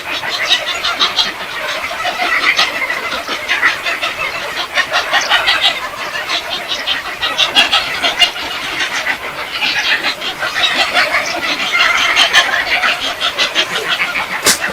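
A flock of large birds at a roost in a tree, calling all together: a dense, unbroken chatter of many short overlapping calls.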